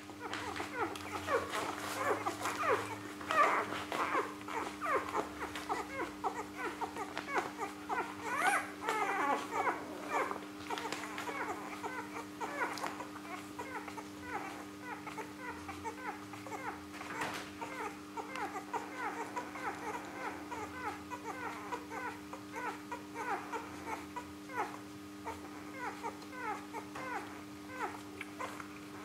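Three-day-old Rhodesian Ridgeback puppies squeaking and whimpering as they nurse: many short high squeaks overlapping, busiest in the first ten seconds or so and thinning out after. A steady low hum runs underneath.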